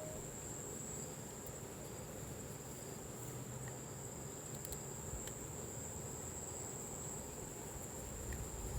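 Insects trilling in one steady, high-pitched, unbroken note, faint, over a quiet low background hiss.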